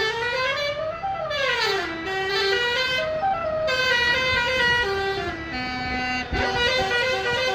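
A 24-note 'basuri' telolet bus horn playing a melody. Several trumpets sound at once, sliding up in pitch and back down, then stepping through a run of short notes.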